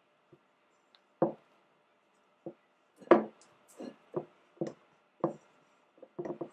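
Irregular soft knocks and taps, about a dozen, from a spatula working cream cheese out of a steel mixing bowl into the stand-mixer bowl.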